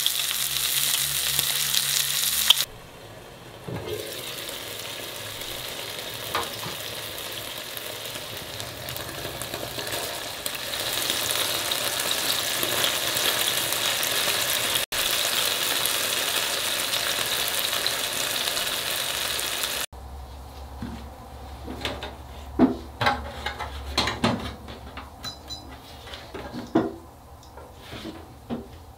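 Bacon, onion slices and hamburger patties sizzling as they fry in pans, a dense hiss that breaks off and resumes at a couple of edits. For the last third the sizzle is gone, leaving a few sharp knocks and clinks.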